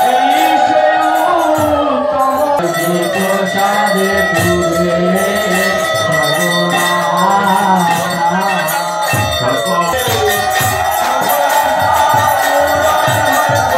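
Devotional singing by several voices, with metallic jingling percussion keeping a steady beat throughout.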